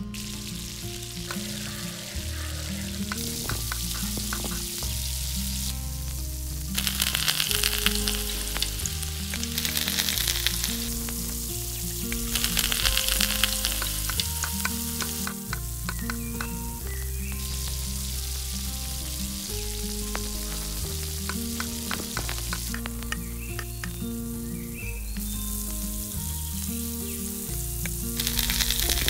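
Food frying in hot oil in a small steel pot: a steady sizzle that swells louder in several stretches, with a spoon stirring in the pot. A bass line of background music runs underneath.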